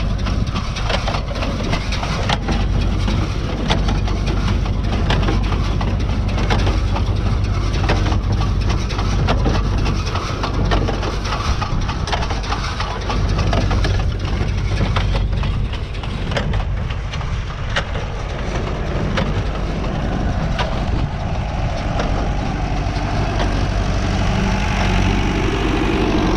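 Tractor engine running steadily while a New Holland 68 square baler works, with a dense, irregular clatter of knocks and crunching hay over the engine hum.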